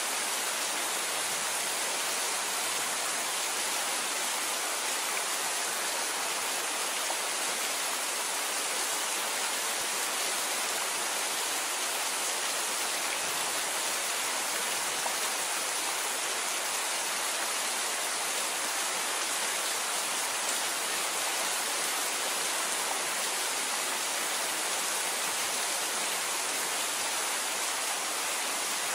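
Steady rain falling, an even hiss with no thunder claps.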